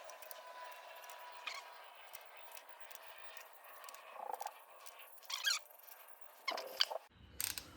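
Hand tools working the cam bearing cap bolts on a cylinder head: light ticks and taps, with a few sharper metallic clicks in the second half, as the bolts are taken to their final 90 inch-pound torque.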